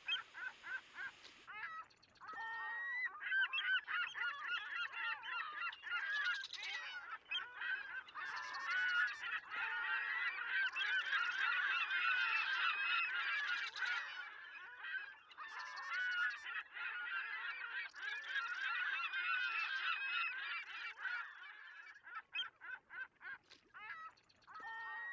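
A flock of birds calling, many overlapping calls at once that thin out to scattered single calls over the last few seconds.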